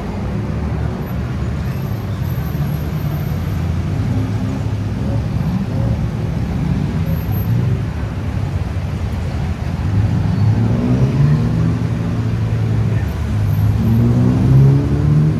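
Busy road traffic with engines running. About two-thirds of the way in, and again near the end, a vehicle engine revs up with rising pitch as it pulls away.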